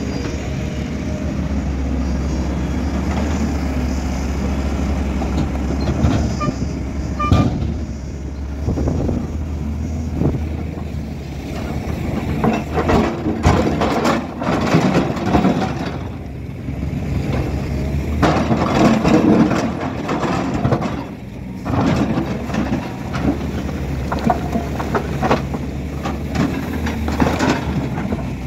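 Volvo crawler excavator's diesel engine running steadily under load as its bucket digs into rocky soil, with scraping and clattering of rocks against the steel bucket, busiest through the middle.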